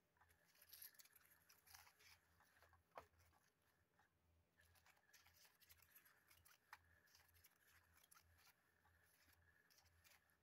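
Faint scratching and rustling on the fabric cover of an electronic cat toy, with scattered light clicks and a faint low hum pulsing evenly underneath.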